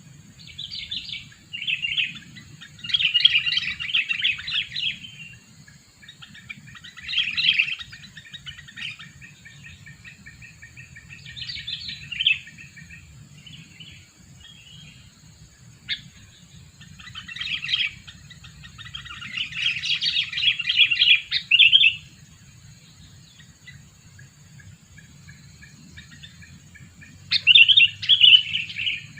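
Sooty-headed bulbul (kutilang) calling in repeated bursts of rapid chirping phrases with pauses between, the bird's calls used as a lure to draw in wild bulbuls. The longest bursts come near the start and about two-thirds of the way in.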